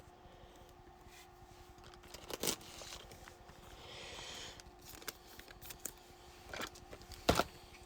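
Trading cards being handled and sorted: a few soft clicks and taps, a brief rustle about four seconds in, and a sharper click near the end, over a faint steady hum.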